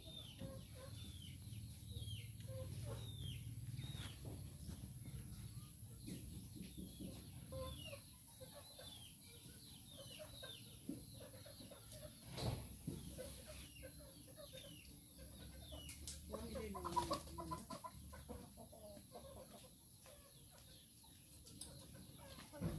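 Chickens clucking faintly off and on, with many short high chirps in between.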